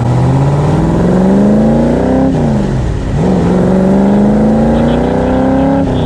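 Roush Racing 392 small-block V8 with side-exit exhaust accelerating, its pitch climbing through the revs. It drops sharply at a gear change about two seconds in, climbs again and drops at another upshift near the end. Heard from inside the open cockpit.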